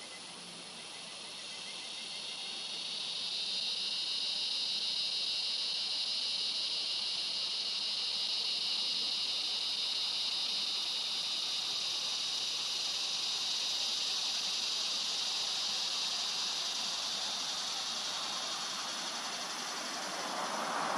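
Insects buzzing: a steady, high-pitched drone that swells over the first few seconds, holds, and eases off near the end.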